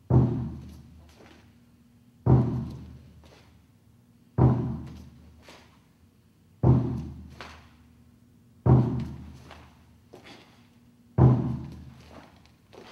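A large drum struck once about every two seconds, each deep beat ringing out and fading before the next: six even beats that count the moves of a Tang Soo Do hyung.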